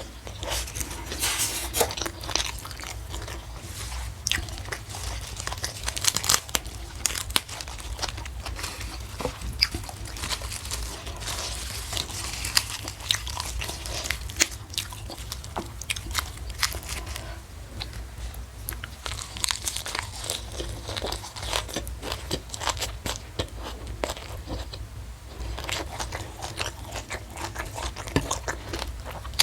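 A person eating close to the microphone, biting and chewing crunchy food in a steady run of irregular crunches and wet chewing clicks.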